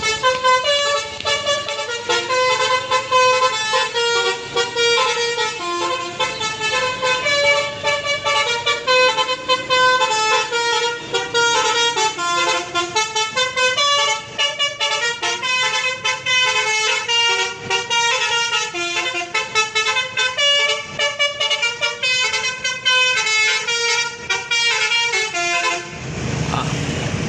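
Bus 'basuri' telolet horn, a multi-tone musical horn, playing a long tune of quick, changing notes. It stops near the end and gives way to vehicle and road noise.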